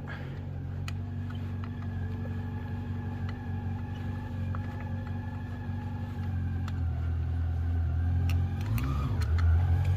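An engine running steadily, slowly getting louder, with a brief rise in pitch near the end and a few faint light clicks over it.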